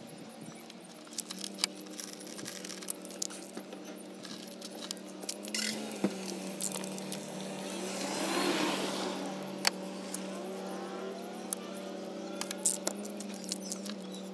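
Razor-blade scraper working along the window frame, scraping cured urethane adhesive and bits of shattered tempered glass, with many sharp clicks and tinkling of glass fragments. One longer scrape swells up around the middle. A steady low hum runs underneath.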